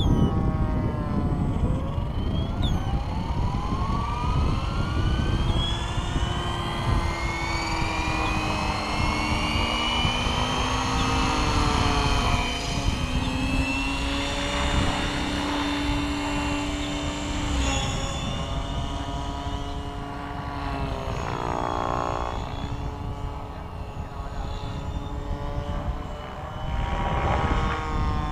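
Align T-Rex 550E electric RC helicopter's Kontronik Pyro motor and rotor head spooling up, the whine rising steadily in pitch over the first ten seconds or so, then holding a steady whine that wavers slowly as the helicopter lifts off and flies. A low rumble of wind on the microphone runs under it.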